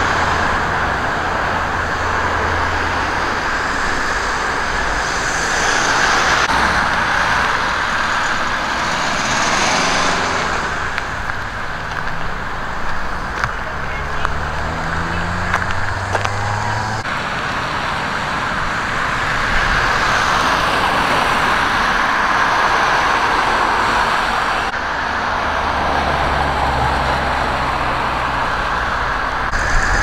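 Road traffic: vehicles passing one after another, with a steady rush that swells and fades as each goes by and an engine's pitch rising about halfway through.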